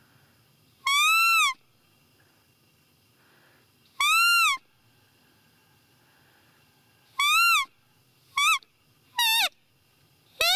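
Six high, clear piping calls of the roe deer 'fiep' type, the contact call used to draw a rutting buck. Each one rises and falls in pitch. The first three come about three seconds apart, then the calls come quicker and shorter near the end, and the last one slides downward.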